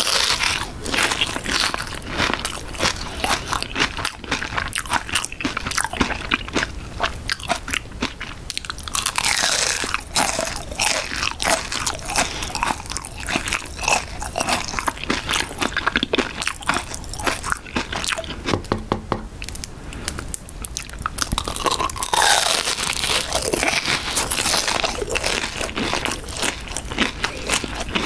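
Close-up biting, crunching and chewing of a raspberry cream cheese pie with a crispy pastry crust: a steady run of dense crackles and crunches, with mouth sounds of chewing, continuing throughout.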